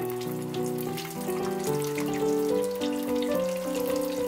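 Background music with a plucked melody of held notes, over the steady crackle and sizzle of battered tiger prawns deep-frying in hot oil.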